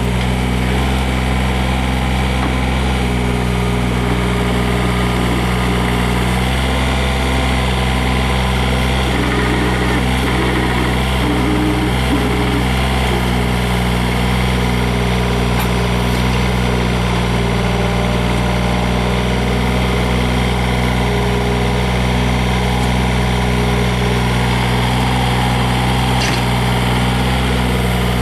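Three-cylinder Yanmar diesel engine of a Yanmar VIO35-3 mini excavator running steadily.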